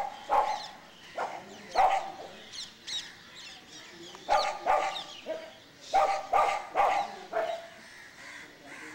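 A dog barking in runs of short barks about half a second apart, with a lull around the middle.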